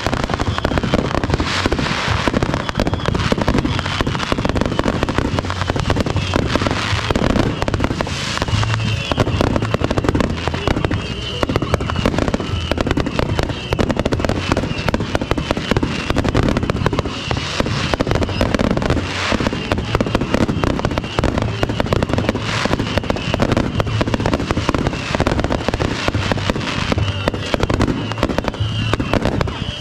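Fireworks finale: a dense, unbroken run of firework bangs and bursts, with music playing underneath.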